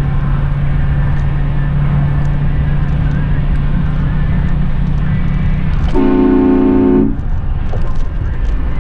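Steady road and engine noise of a car travelling at highway speed, heard from inside, with a low drone. About six seconds in, a car horn sounds once for about a second.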